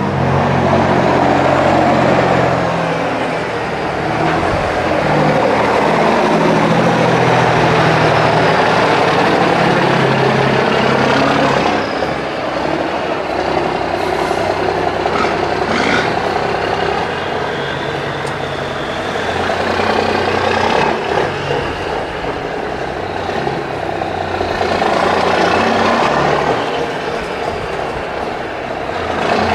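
Heavy trucks driving past one after another: engine and tyre noise swells as each one passes and then fades, several passes in a row.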